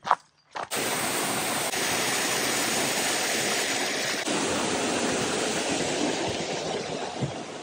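Small waterfall splashing into a rocky pool: a steady rush of falling water that starts suddenly about a second in and eases slightly near the end.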